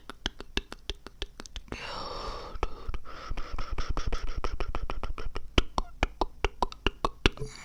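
Close-miked ASMR mouth and breath sounds: a steady string of sharp mouth clicks, with a long breathy whisper or exhale through the middle while the clicks come faster.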